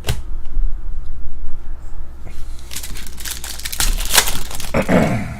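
Foil trading-card pack wrapper being crinkled and torn open, a dense crackly rustle about halfway through, after a single sharp click.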